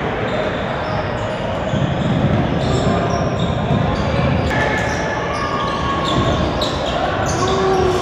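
Basketball gym ambience: voices, basketballs bouncing on the hardwood court, and many short high squeaks scattered throughout.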